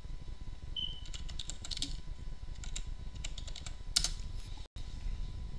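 Typing on a computer keyboard: scattered runs of key clicks, one louder click about two-thirds of the way through, over a low steady hum.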